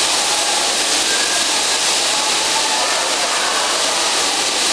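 Steady loud rushing din of a bumper-car hall with electric bumper cars driving around, with no distinct bumps or voices standing out.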